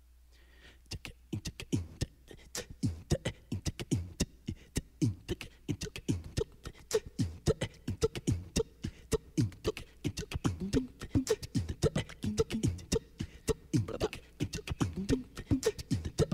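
Two electric basses start about a second in with a fast, percussive groove: sharp string clicks over low notes, many of them sliding down in pitch.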